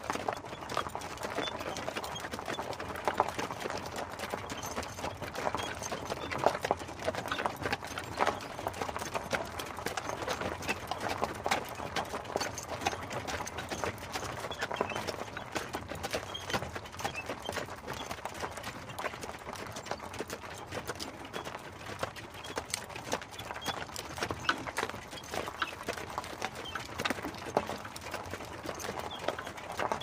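Hooves of two horses pulling an open carriage, clip-clopping steadily, with a dense run of knocks and no break.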